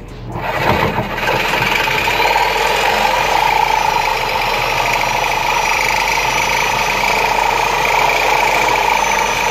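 Reciprocating saw (sawzall) running at steady speed, cutting a slit through the lip of an old differential subframe bushing. It starts about half a second in and builds over the first second, then holds a loud, even whine.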